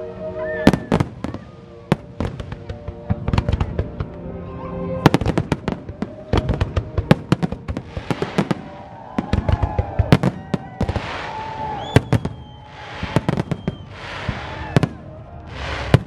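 Fireworks display: a rapid, irregular barrage of sharp bangs from shells bursting overhead, with spells of hissing crackle in the second half.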